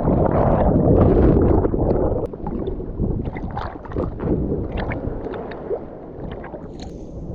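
Water sloshing and lapping close to the microphone, with small irregular splashes and gurgles. It is louder for the first two seconds, then softer.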